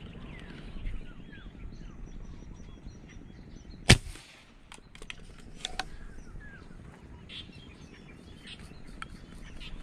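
A single sharp airgun shot about four seconds in, fired from an airgun rigged with a fishing spear, followed by a couple of fainter clicks; birds chirp faintly throughout.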